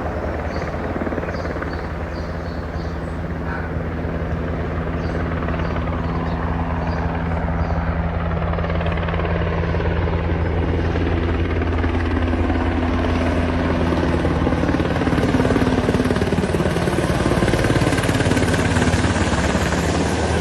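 Helicopter in flight, its rotor and engine running with a steady low hum and a rapid beat. In the second half its tones slide lower in pitch.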